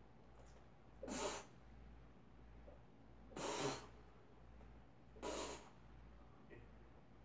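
A weightlifter's sharp, forceful breaths, three of them about two seconds apart, one with each rep of a 60 kg barbell press, over a faint steady low hum.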